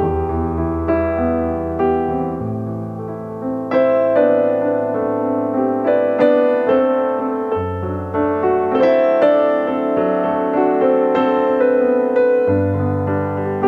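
Background music: piano chords over held bass notes.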